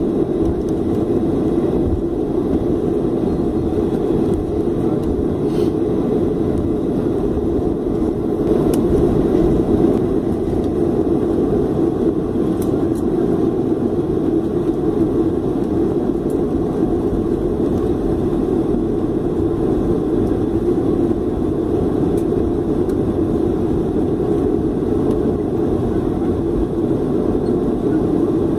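Cabin noise in a Boeing 737-300 taxiing after landing: a steady rumble from its CFM56-3 turbofan engines at low taxi power, heard from a window seat over the wing.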